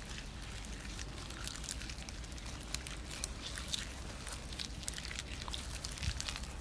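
Wet mud squelching under bare hands as they pat and smooth a mud coating, with many small irregular wet clicks and smacks.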